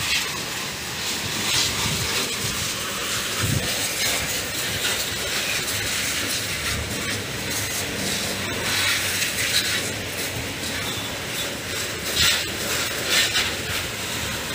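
Water spraying from a garden hose onto a motorcycle and splashing on the tiled floor: a steady hiss with brief louder surges now and then.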